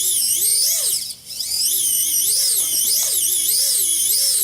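Small electric motors of a home-built toy assembly line whining as the line runs. The pitch rises and falls over and over, about one and a half times a second, with a brief dip about a second in.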